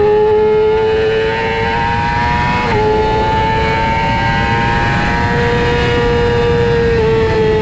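Racing motorcycle engine at high revs under hard acceleration, heard from on board with wind rushing past. Its pitch climbs slowly and dips sharply twice, a little under three seconds in and again near the end, at quick upshifts.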